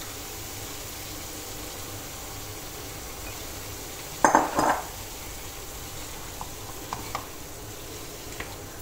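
Vegetables and chicken sizzling in a wok with a steady hiss. About halfway through there is a brief loud clatter of kitchenware against the pan. It is followed by a few light taps as a wooden spatula stirs the food.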